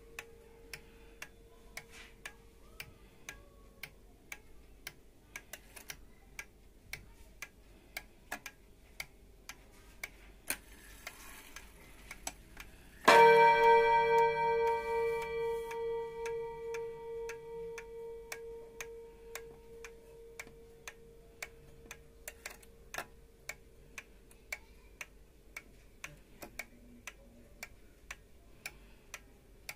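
Vintage Seiko 30-day chiming pendulum wall clock ticking steadily. About 13 seconds in, its hammer strikes the coil gong once, and the bright ringing tone fades slowly over several seconds while the ticking carries on.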